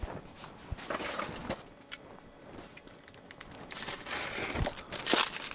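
Parcel packaging being handled on a table: a few soft knocks and rustles as a taped cardboard parcel and padded bags are moved, then crinkling building near the end.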